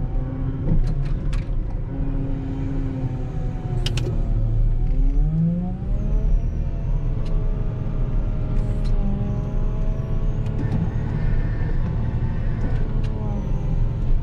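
Volvo L60H wheel loader's diesel engine running under load while plowing snow, heard from inside the cab. Its pitch dips and then rises about halfway through before holding steadier, with a few sharp clicks, the loudest about four seconds in.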